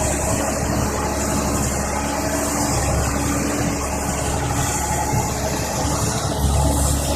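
Caterpillar 320D tracked excavator's diesel engine running steadily.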